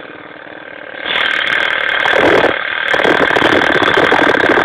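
Lawn mower engine running with a rapid, even pulse and a steady whine, running sweet. It gets suddenly louder about a second in and stays loud.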